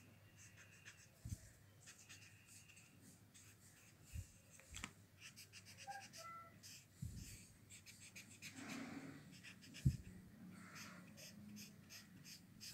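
Faint scratchy rubbing of a paper blending stump over charcoal on drawing paper, in short strokes, with a few soft knocks.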